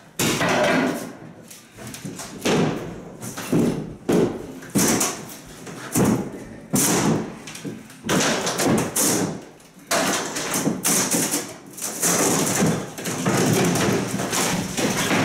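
Drywall being ripped off the wall by hand: a string of sudden cracks, tears and thuds, about one a second, as pieces snap away and drop.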